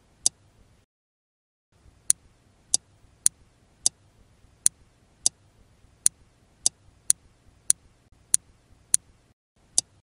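Relays on a 5 V four-channel RF remote-controlled relay module clicking as they are switched from the handheld remote: about fourteen sharp clicks, mostly half a second to a second apart, with a short pause about a second in.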